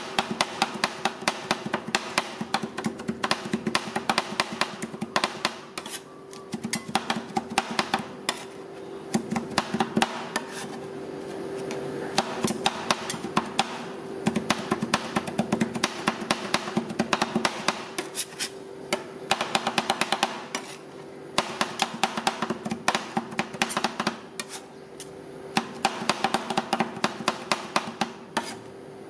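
Two metal spatulas chopping fast against the steel plate of a rolled-ice-cream cold pan, mixing sticky rice and egg into the ice cream base. The taps come in quick clattering bursts with short pauses between them, over a steady hum.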